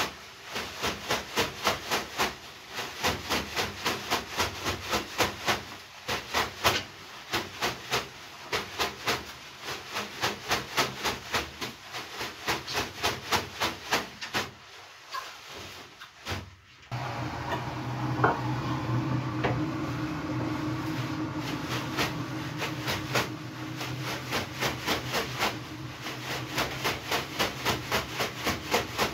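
A pair of wet leafy bath brooms (veniki) swishing and slapping on a bather's body in rapid rhythmic strokes, about three a second. The strokes stop about halfway through and give way to several seconds of a steady rushing sound, then pick up again near the end.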